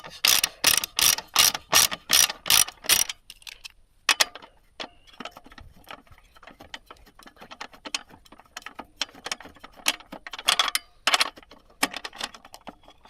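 Ratchet wrench clicking while loosening the exhaust mounting bolt. About nine loud clicks come in the first three seconds, then faster, fainter ratcheting with a few louder clicks near the end.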